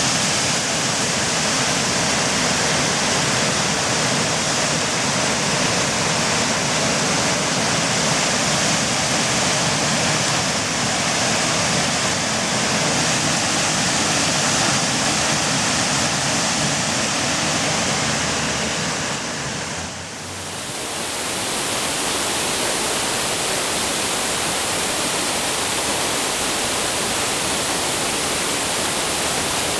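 Waterfall rushing, a steady loud roar of falling water. About two-thirds of the way through it dips briefly and comes back as a flatter, more even hiss.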